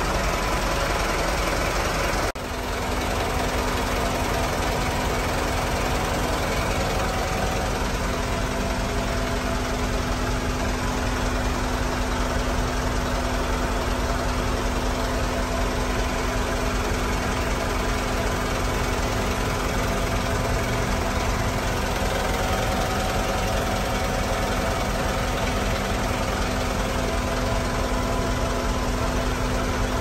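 Mitsubishi Canter truck's four-cylinder turbo-diesel engine idling steadily, heard inside the cab with the air conditioning blowing cold. A brief dip about two seconds in, after which a steady low hum joins the engine.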